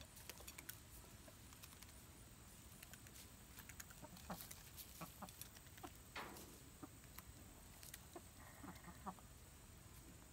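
Buff Orpington chickens clucking faintly, with scattered light clicks of beaks pecking at feed and a short falling call about six seconds in.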